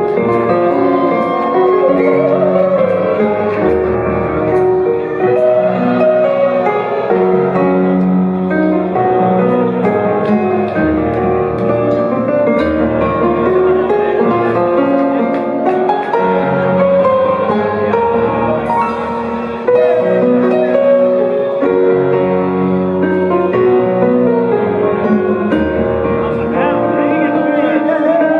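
Live metal band playing a slow, loud intro: keyboard chords and melody from a Korg Kronos workstation over held bass guitar notes.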